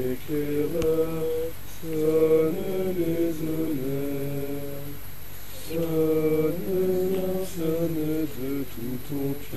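A group of scouts singing a slow song together in unison, low voices holding long notes in phrases with short pauses between them, while the flags are hoisted.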